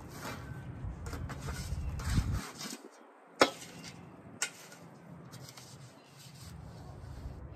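Metal shovel digging and scraping through loose soil in a string of rough scrapes, with two sharp knocks about three and a half and four and a half seconds in.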